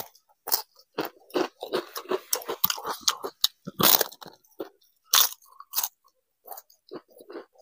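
Fried papad crunching loudly as it is bitten and chewed, close to the microphone, in irregular crackling bursts with the loudest crunches about four and five seconds in.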